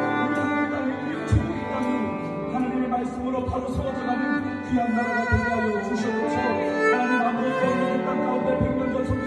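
Violin playing a slow, sustained melody with vibrato, with a few soft low thumps.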